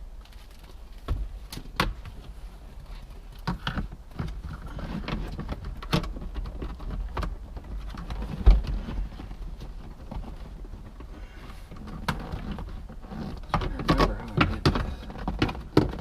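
Aluminum instrument panel carrier being worked into place in a car's dashboard: scattered knocks, clunks and scrapes, with one heavy thump about halfway through and a busier run of knocks near the end.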